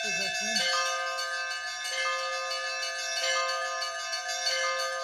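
Russian Orthodox monastery bells ringing to call people to a service. Four strikes about 1.3 s apart, each laid over the still-sounding ring of several bells.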